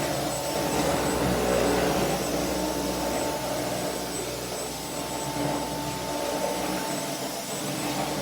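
Dyson vacuum cleaner running steadily: an even motor rush with a steady high whine, the level rising and falling a little as it is pushed about.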